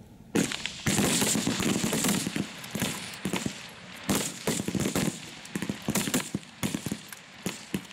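Full-bore rifles firing along a firing line. A dense volley of shots starts about half a second in, then irregular single and paired shots follow.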